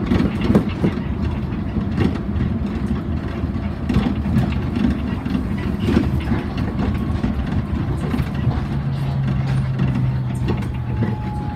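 Rubber-tyred people-mover car of the Yamaman Yūkarigaoka Line running along its concrete guideway, heard from the cab: a steady low rumble with sharp knocks every second or two. About eight seconds in a steady low hum joins it, and near the end a faint falling whine.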